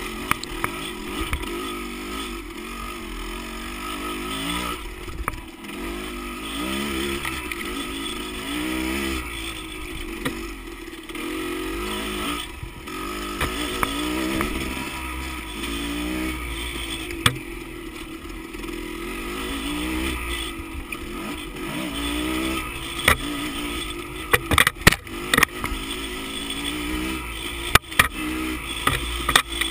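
Dirt bike engine revving up and down over and over as the throttle is worked on a rough trail. Several sharp knocks and clatter come near the end.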